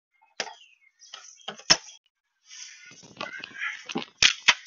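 Tools and trim being handled: a few sharp clicks and knocks, the loudest pair near the end, with rustling and scraping in between.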